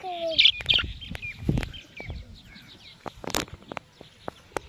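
Pet parrot chirping and squawking in short calls, with scattered clicks and one sharp, loud squawk about three seconds in.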